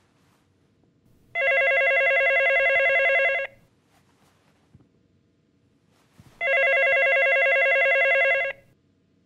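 Corded landline telephone ringing twice, each ring about two seconds long, with about three seconds of quiet between them.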